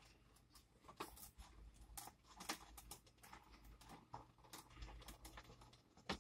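Near silence: quiet room tone with a faint low hum and scattered small clicks and rustles of handling.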